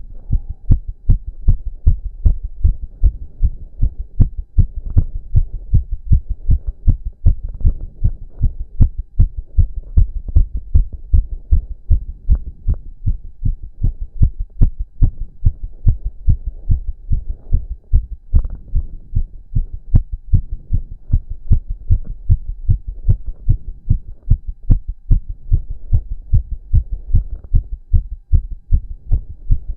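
A man's heartbeat, fast and strong after exercise: a rapid, steady run of low thumps.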